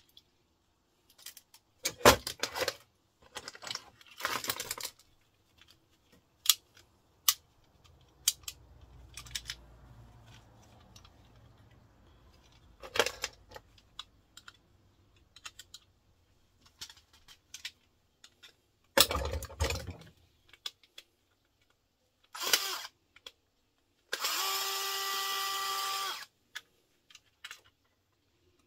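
Clicks, snips and clatter of hard plastic plug and socket parts and hand tools on a workbench as mains plugs are taken apart for their brass and copper. Near the end a small cordless power screwdriver runs for about two seconds with a steady whine.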